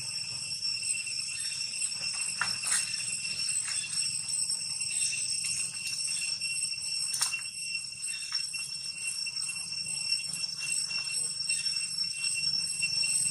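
A steady, high-pitched insect drone with a continuous pitch, with a few short clicks and rustles in the leaf litter.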